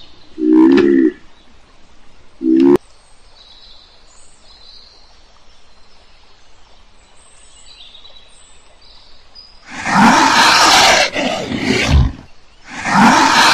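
Animal sound effects: two short low pitched calls in the first three seconds, faint high chirps, then two loud, rough roars of about two seconds each near the end.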